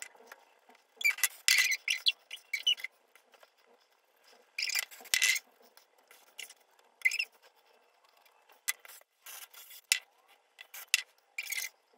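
Hair rustling in short, irregular strokes as it is backcombed and smoothed.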